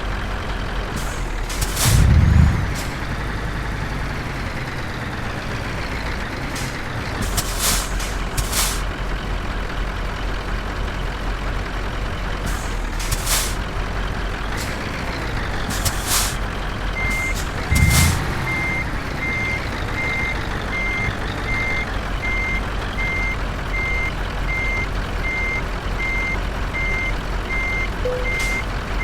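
Scania R730 truck's V8 diesel running, with two loud short bursts, about two seconds in and again a little past the middle. From a little past the middle a reversing beeper sounds steadily, about one and a half beeps a second.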